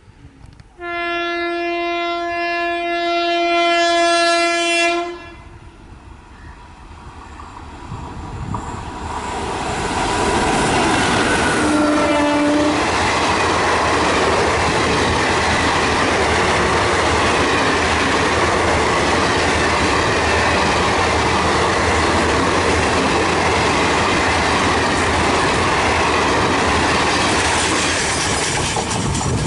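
WAP4 electric locomotive's horn sounding one long blast of about four seconds, then a short second toot about twelve seconds in, as an express passenger train comes up and passes at speed. The clickety-clack of the coaches' wheels over the rails runs on loud and steady, easing a little near the end.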